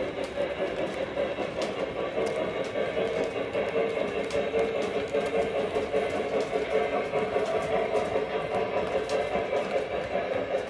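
O-gauge model train passenger cars rolling on three-rail track: a steady whirring rumble of the wheels with light, scattered clicks.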